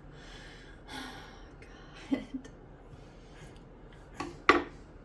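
A long breathy exhale, then a single sharp knock about four and a half seconds in.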